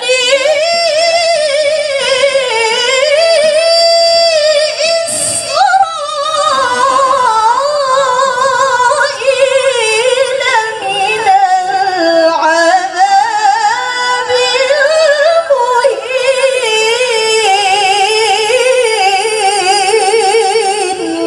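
A woman's solo Qur'an recitation, chanted in a melodic, ornamented style into a handheld microphone: long held high notes with wavering melismatic turns. There is a brief pause for breath about five seconds in, and the phrase tails off at the very end.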